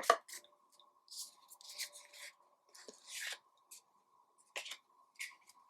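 Faint, scattered rustles and short scrapes of trading cards and their pack wrapper being handled as cards are slid apart to reach the relic card.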